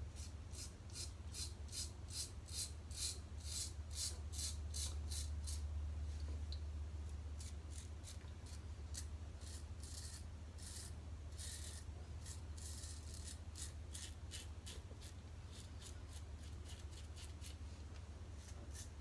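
Merkur Futur safety razor scraping through lathered stubble in short strokes, a crisp rasp with each stroke, about two to three a second with a few brief pauses.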